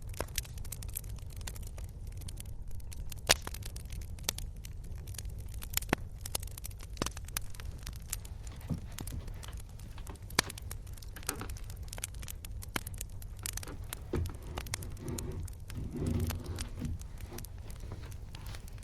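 Wood fire crackling, with irregular sharp pops and snaps over a low steady rumble; one pop about three seconds in is much louder than the rest.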